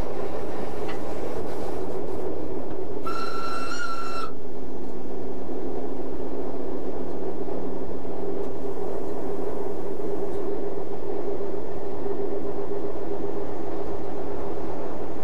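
Three-car RBDe 4/4 electric multiple unit running along the line with a steady rumble and hum. A few seconds in, a single high-pitched horn toot sounds for about a second.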